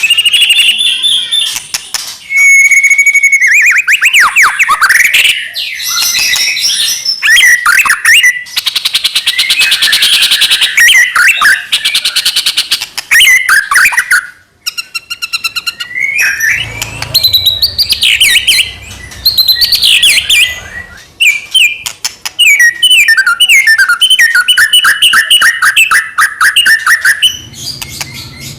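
White-rumped shama (murai batu) singing a long, varied song of loud whistles, fast trills and chattering runs, broken by short pauses.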